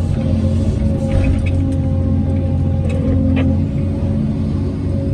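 Hyundai R850LC excavator's diesel engine running steadily, with a steady low hum and a few short clicks about a second in and again past three seconds.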